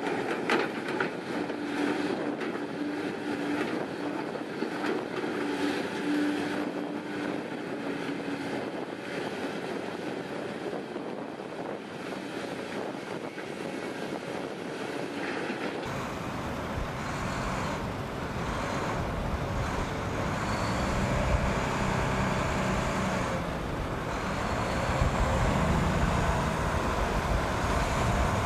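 Diesel engine and hydraulics of a large Hitachi Zaxis excavator running steadily as it digs and swings rock into a dump truck, with a steady hum in the first few seconds. About 16 s in it cuts to the deeper rumble of a Volvo wheel loader's diesel engine as it drives.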